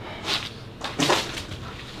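Footsteps crunching and scraping on loose stone rubble, two steps under a second apart.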